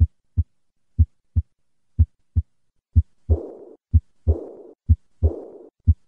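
Heart sounds heard through a stethoscope: three normal beats, each a lub-dub pair about one a second. From about three seconds in, each second sound (S2) is followed by a fading, decrescendo murmur in early diastole, the typical murmur of aortic regurgitation.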